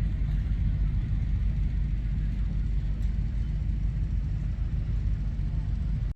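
A steady low rumble with faint background noise, cut off abruptly at the end.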